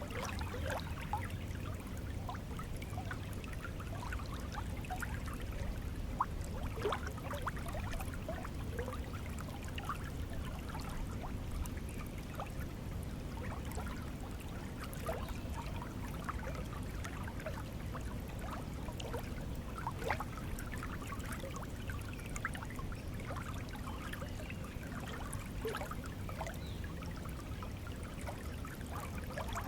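Stream water flowing and trickling steadily, with many small bubbling splashes.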